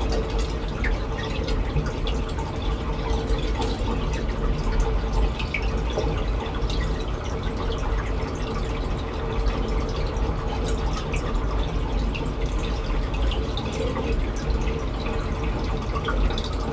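Reef aquarium water circulating: steady trickling and splashing with many small drips, over a constant low hum.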